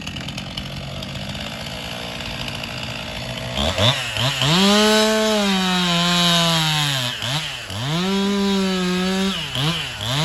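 Two-stroke chainsaw idling, then opened to full throttle about three and a half seconds in and cutting into a log from the top, its pitch sagging as the chain bites. It drops off and revs back up twice near the end.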